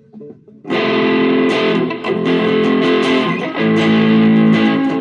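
Electric guitar through a Joyo DC-15 practice amp on its metal preset: distorted chords coming in about a second in, with several chord changes.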